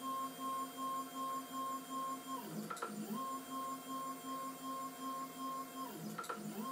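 Stepper motors of a homemade CNC router driving its axes through the Proxxon KT150 cross-table lead screws: a steady, pulsing electronic whine over a lower hum. Twice, about two and a half seconds in and again near the end, the pitch slides down and back up as the axes slow, stop and start moving again.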